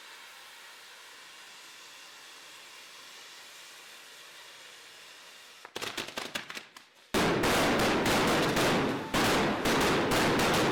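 Firecrackers packed into a papier-mâché Judas effigy going off: a steady background hiss, then a quick run of sharp cracks about six seconds in, then a dense, loud, unbroken rattle of bangs for the last few seconds.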